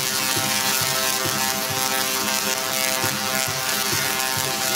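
Two singing Tesla coils discharging arcs into a performer's conductive suit. The sparks buzz out a tune: harsh buzzy notes that change several times a second over a steady droning tone.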